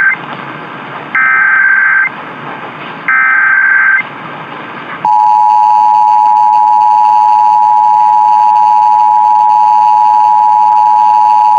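Emergency Alert System SAME header: the end of one burst and then two more one-second bursts of digital data tones, about a second apart, with AM radio static between them. About five seconds in, the steady two-tone EAS attention signal (853 and 960 Hz) starts and holds, opening an Illinois Emergency Alert System test.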